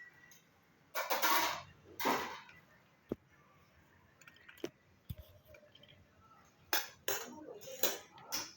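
Utensils clinking and scraping against dishes during food preparation: two short scraping bursts, then a scatter of sharp clicks and taps.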